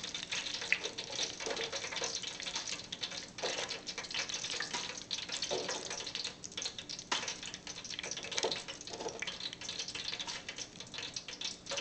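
Hot oil in a deep fryer crackling and popping in a dense, irregular patter, with a few louder knocks scattered through.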